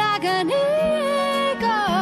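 Background music: a song with a sung melody, long held notes that waver in pitch, over steady accompaniment.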